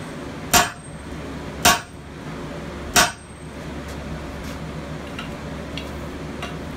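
Sledgehammer blows on a steel drift set in a red-hot hammer head on the anvil, opening the hammer's eye: three sharp strikes about a second apart, the last about three seconds in, then a steady low hum with faint ticks.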